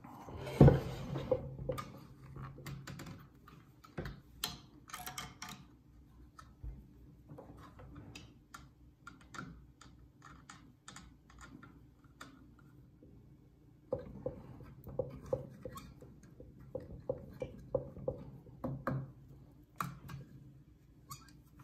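Small clicks, taps and rattles of a clear plastic chip guard and its metal bracket and screws being handled and fitted onto a benchtop mortiser, with one sharper knock about half a second in. A faint low hum runs underneath.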